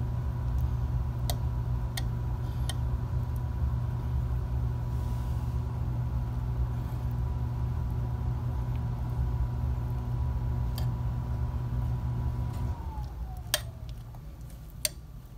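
An appliance motor runs with a steady low hum and a thin high whine, then switches off near the end, its whine falling as it winds down. A few light clicks of a spoon against the crock pot come as the glaze is spread.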